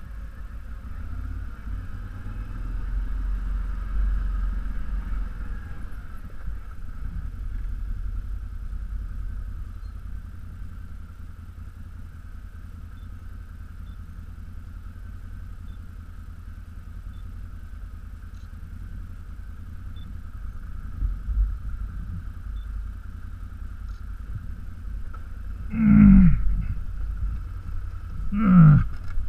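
ATV engine running at low speed with a steady low rumble, then two short, louder throttle surges close together near the end, each dropping back in pitch.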